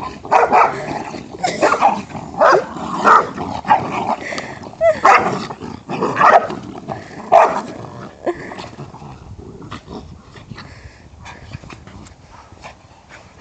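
Two small dogs barking in play while tugging at and chasing a toy. The barks come thick and loud for the first seven or eight seconds, then thin out and grow quieter.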